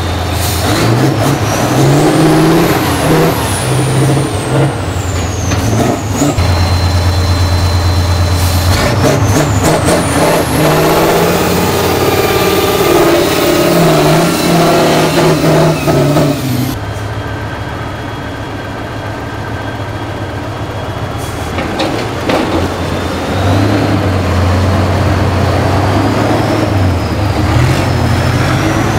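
Tatra 6x6 trial truck's diesel engine revving hard under load in mud, with a high whine that rises and falls. The engine eases off for a few seconds about two-thirds of the way through, then pulls again.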